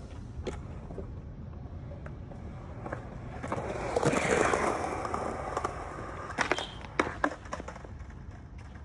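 Skateboard wheels rolling on concrete, swelling louder and fading away over about two seconds, followed by a few sharp clacks of the board.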